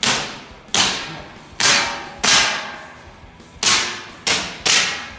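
Gas blowback gel blaster pistol firing seven sharp shots in quick, uneven succession, each followed by a short fading ring.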